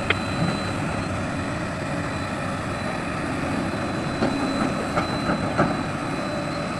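Excavator running steadily, with a few sharp metallic knocks and clanks about four to six seconds in.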